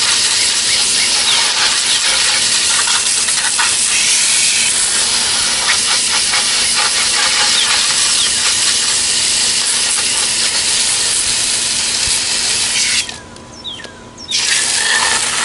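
Garden hose spraying water through the condenser coil of a 1998 Lennox central air conditioner, rinsing out lodged dirt: a loud, steady hiss of spray that stops briefly near the end and then resumes.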